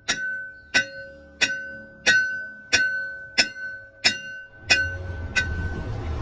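Hammer striking a steel part in a steady rhythm, nine ringing blows about three every two seconds, each leaving the metal ringing with a clear tone. The blows stop about five seconds in and a steady low rumble comes in.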